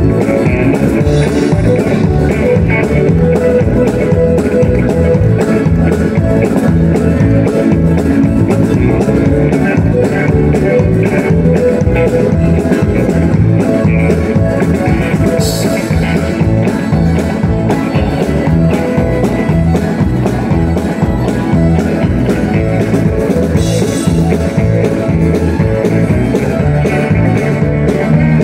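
Live country band playing a tune with a steady beat, a fiddle bowing the lead over electric bass and guitar, with a couple of cymbal crashes.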